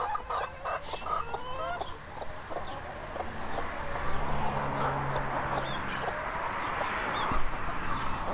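A flock of backyard hens clucking as they peck and scratch for worms and sprouts in loose compost, with scattered short pecking taps.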